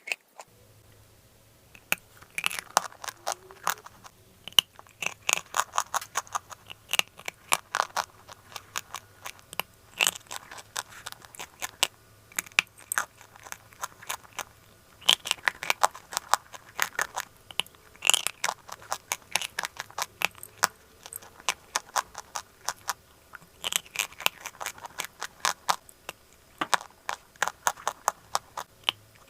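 Dry chalk clay being bitten and chewed, with many sharp crackling crunches coming in quick, irregular runs.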